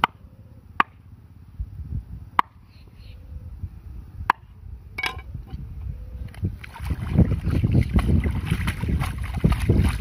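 A machete chopping through needlefish onto a wooden board: four or five sharp chops spread over the first five seconds. From about six and a half seconds in, water splashing and sloshing as a woven basket of the cut fish is rinsed in the shallows.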